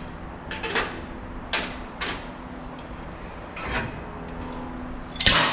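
Metal parts of a brake lathe arbor clinking and knocking as the spindle nut and adapters are worked off and the brake drum is lifted off, a few separate clicks, then a louder metallic clatter near the end as the drum's anti-chatter spring snaps off.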